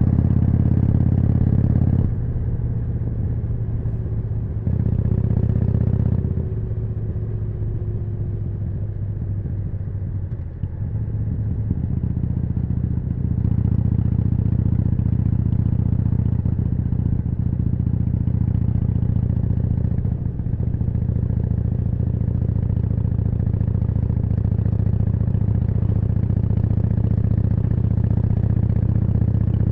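Harley-Davidson Forty-Eight's V-twin engine running through a Jekill & Hyde exhaust while under way. The throttle opens and closes twice in the first six seconds and then eases for several seconds. From about a third of the way in the engine is held steady and louder, with one short lift near the two-thirds mark.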